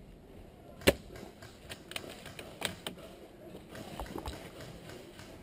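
A single sharp snap of an airsoft rifle shot about a second in, followed by a scatter of lighter clicks and knocks.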